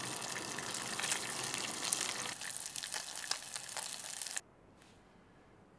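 Fish skin sizzling and crackling in hot oil as it fries and bubbles, a dense patter of little pops. It cuts off abruptly about three-quarters of the way through, leaving near silence.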